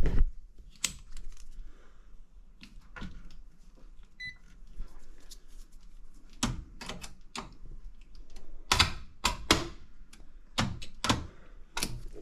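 Irregular clicks, knocks and rattles of hands working with tools and small parts, busier in the second half, with a short faint beep about four seconds in.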